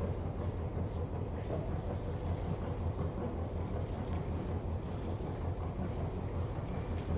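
Albin 2D marine engine of a 25-foot wooden launch running steadily, with an even low beat.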